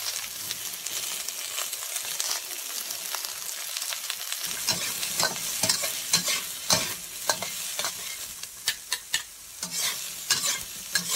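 Chopped onion, garlic and ginger sizzling in hot oil in a wok. From about four seconds in, a metal ladle scrapes and tosses them around the wok in quick, irregular strokes.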